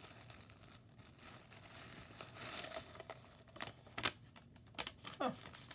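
Plastic wrapping crinkling as it is handled, soft at first, then a few sharper crackles about three to five seconds in.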